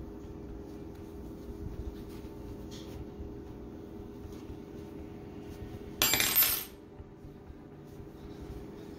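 Faint rustling of yarn and terry towel worked with a crochet hook over a steady low hum, then, about six seconds in, a short, loud metallic clatter as the metal crochet hook is set down on the table.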